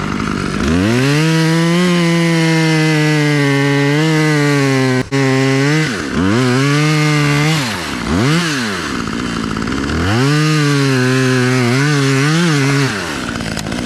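Husqvarna chainsaw run up to full throttle and cutting wood in three long runs, with a quick throttle blip between the second and third, dropping back to idle between runs and at the end.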